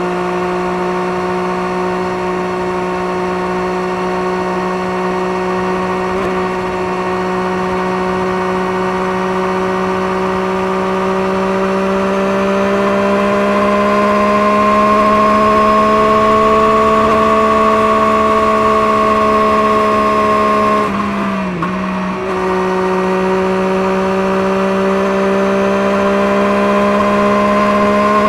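Engine running at steady, fairly high revs through a Scorpion aftermarket exhaust, with a smooth pitched drone. The pitch rises slowly partway through and dips briefly about three-quarters of the way in before picking back up.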